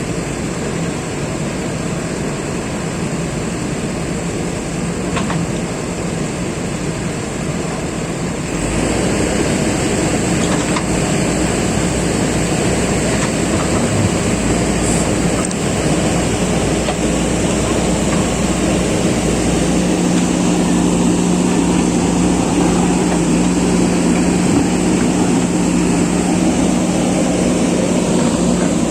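Diesel engines of JCB backhoe loaders running under load. The machine noise grows louder about a third of the way in, and a steady engine hum comes in about two-thirds of the way through.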